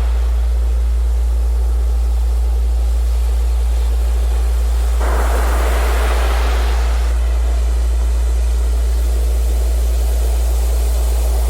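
A steady, deep electronic tone, a 'Rife frequency', held without change under the hiss of sea surf. About five seconds in, a wave breaks and washes up, then fades about two seconds later.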